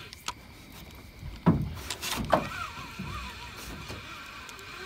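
Two sharp knocks in a small fishing boat, about a second apart, over a faint steady background.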